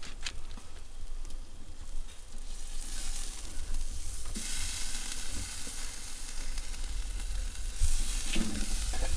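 Marinated meat sizzling as it fries, a steady hiss that swells about three seconds in and again near the end.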